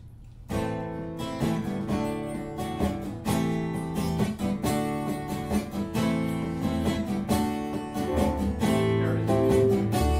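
Music: a song intro of acoustic guitar strumming chords, starting about half a second in, with a low bass part joining near the end.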